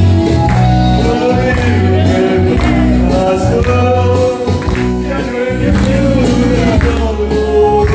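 A man singing over a karaoke backing track with a steady beat and strong bass.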